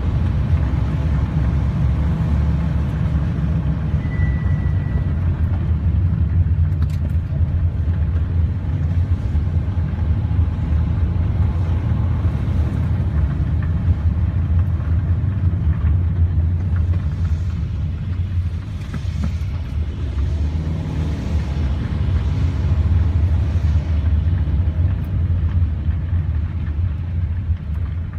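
Car driving on a wet city street, heard from inside the cabin: a steady low rumble of engine and tyre noise that eases off near the end as the car slows.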